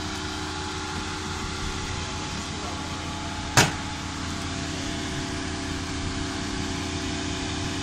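Motorhome engine idling steadily, a hum with several constant tones. A single sharp click about three and a half seconds in as the cab door is opened.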